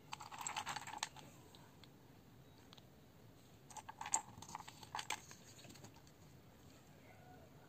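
Faint clicking and rattling of small plastic Lego minifigure parts being handled and moved about on a mat by a gloved hand. A short rustle opens it, and a quick run of clicks comes around the middle.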